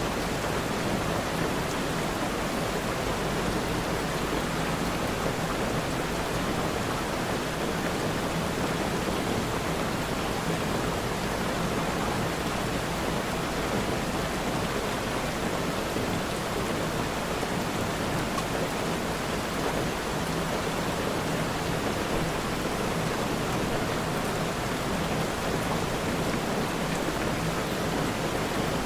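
Steady, continuous rainfall: an even hiss of rain without a break or change in intensity.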